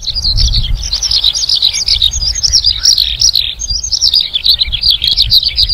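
Dense chorus of many small birds chirping, the calls overlapping without a break, over a steady low rumble.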